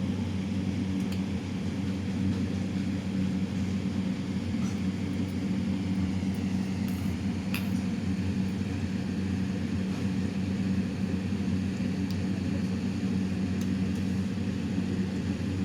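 A steady low hum, as of a running household appliance motor, with a few faint clicks scattered through it.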